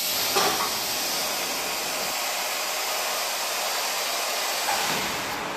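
Industrial parts washer for degreasing machined parts: a loud, steady rushing hiss that starts abruptly as the lid comes down and holds even.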